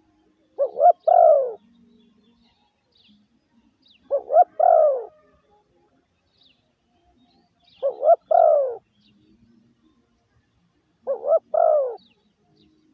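Spotted dove cooing its song four times, about every three and a half seconds; each phrase is two short notes followed by a longer falling note.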